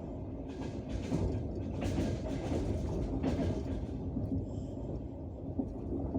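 Wheels of a passenger train carriage rolling along the rails: a steady low rumble with several sharper knocks in the first half, the clack of the wheels over rail joints.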